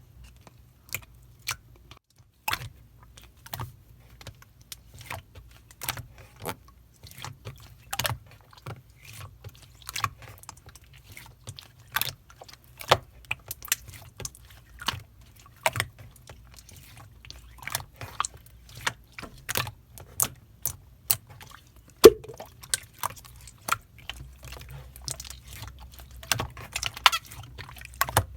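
Clear slime being squeezed and pressed by hand, making sharp, irregular clicks and pops, about one or two a second, with one louder snap near the end.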